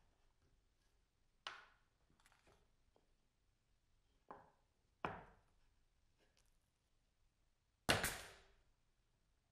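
A few light knocks as plywood parts are set together, then a pneumatic brad nailer fires once near the end, a sharp crack that trails off quickly.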